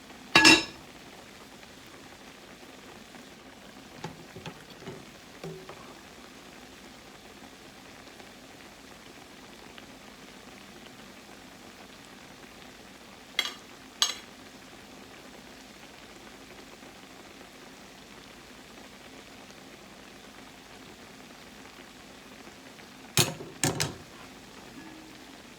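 Croquettes frying in hot oil, a steady sizzle. Sharp clinks cut in about half a second in, twice around the middle, and in a quick cluster near the end.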